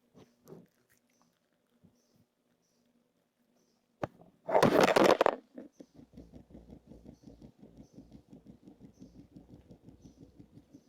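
Small pets scurrying: a loud rustle lasting about a second near the middle, then a fast, even patter of small taps.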